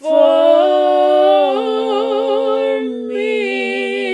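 Two women singing a cappella in harmony, holding long wordless closing notes with vibrato. The pitches shift a couple of times and settle into a final chord.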